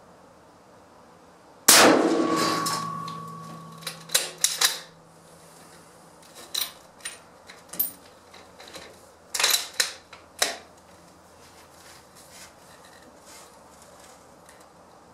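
A single rifle shot from a scoped rifle, ringing out and dying away over about two seconds. It is followed by a series of sharp metallic clicks and clacks as the rifle is handled, several in quick succession about ten seconds in.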